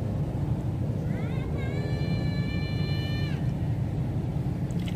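A steady low rumble of outdoor background noise. About a second and a half in, a single high pitched tone slides up, holds level for under two seconds, then stops.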